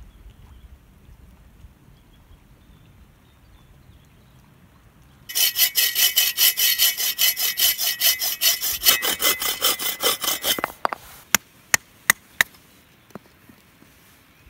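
A small hand saw cutting through a wooden stick: quick, even back-and-forth strokes, about three or four a second, start about five seconds in and last some five seconds. A few sharp clicks follow.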